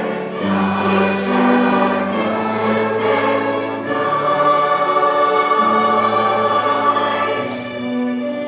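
A school choir singing a slow holiday piece in sustained held chords, with the singers' 's' sounds hissing together now and then.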